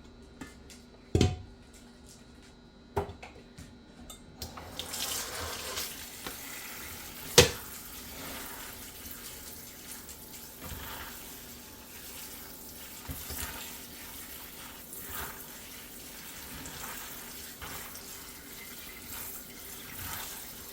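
Kitchen tap running over salted shredded cabbage, rinsing the excess salt out. A few knocks come before the water starts about four seconds in, and one sharp knock, the loudest sound, a few seconds after.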